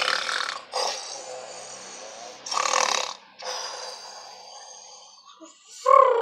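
A person imitating snoring with their voice for a sleeping toy dog: a series of drawn-out rasping breaths. Near the end comes a louder voiced sound that falls in pitch.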